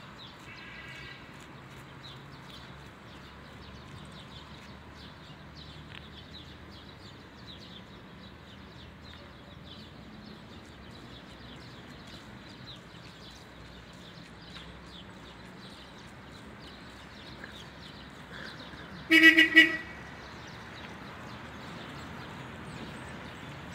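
A vehicle horn gives two quick toots about 19 seconds in, the loudest sound here. Around it is steady outdoor background with faint high chirping.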